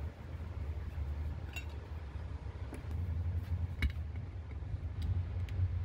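Small metal carburetor parts and a hand tool clicking and clinking as they are handled: a few separate light ticks, the sharpest about two-thirds of the way through, over a steady low rumble.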